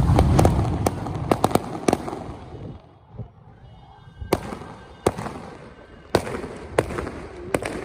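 Fireworks exploding in a rapid run of sharp bangs for about two seconds, then a short lull, then single bangs about once a second.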